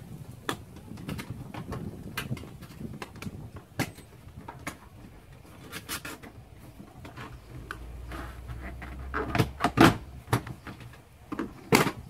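Scattered clicks, knocks and rattles of hands working at the plastic seat-belt trim cover on a Toyota Land Cruiser's door pillar, with a few louder knocks near the end.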